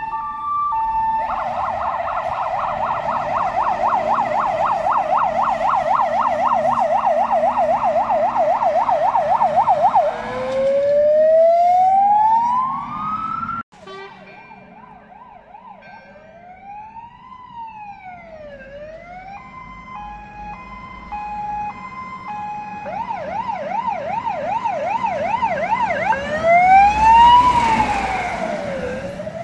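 Emergency vehicle sirens cycling through their modes: a fast yelp warbling several times a second, a rising wail, and a two-tone hi-lo. The sound cuts off abruptly about halfway through and comes back fainter, with wails that rise and fall. It then grows loud again as a fire engine passes close with its siren wailing and its engine rumbling beneath.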